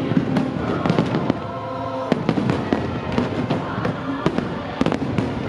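Aerial fireworks shells bursting in quick succession, with sharp bangs about every half second and crackling between them. The show's music plays steadily underneath.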